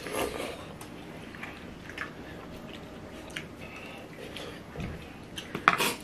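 People slurping and chewing forkfuls of noodles, with scattered small clicks and smacks throughout and a louder short burst of sound about five and a half seconds in.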